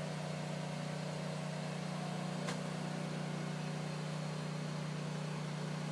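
A grout mixer-pump rig running steadily with a constant low engine drone, as bentonite grout is mixed for pumping into the well. There is a light click about two and a half seconds in.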